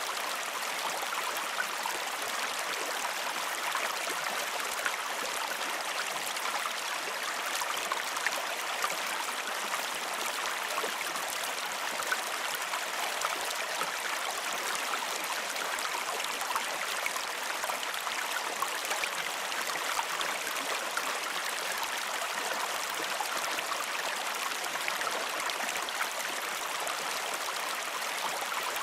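Stream of water flowing steadily, an even rush sprinkled with tiny splashes and drips.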